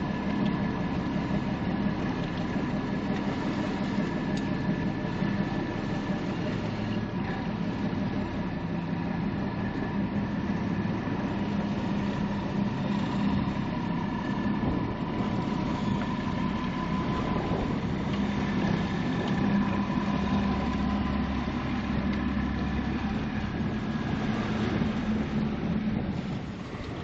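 Boat engine running steadily at an even, unchanging pitch.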